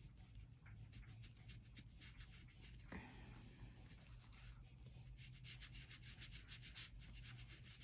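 Faint scratchy rubbing of an oil pastel stick worked across paper in quick, short back-and-forth strokes. The strokes come thickest in the second half.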